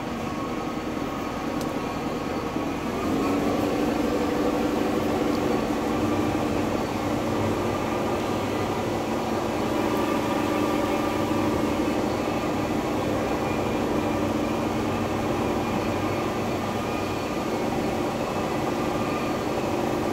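Parasail boat's engine running under way, a steady hum that gets louder about three seconds in, then holds steady.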